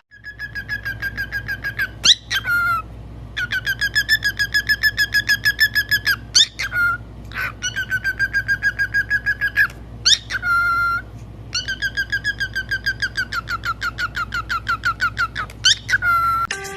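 A parrot whistling rapid trills of repeated clear notes, about six a second, in runs of two to three seconds, broken by a few short rising whistles.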